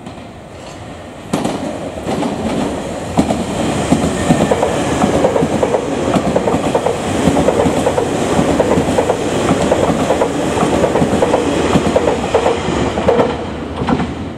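Nankai express train of coupled 6000- and 6200-series stainless-steel electric cars passing at speed, its wheels clacking over the rail joints in a steady stream of beats. It comes in with a sudden rise about a second in and falls away just before the end.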